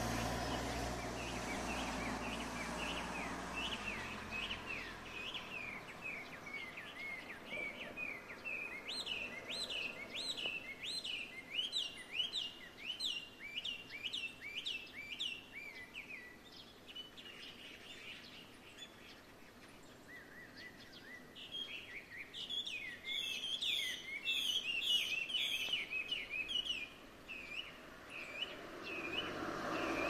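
A songbird singing: long runs of quickly repeated whistled notes, a pause of a few seconds past the middle, then a louder burst with some very high notes. The recorder takes it for a Chinese hwamei (gabichō), a mimicking laughingthrush.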